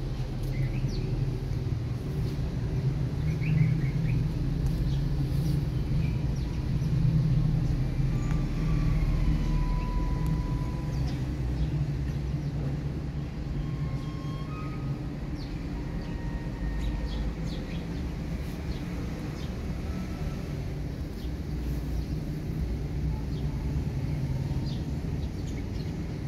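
Steady low engine rumble, louder through the first half, with a few short bird chirps over it.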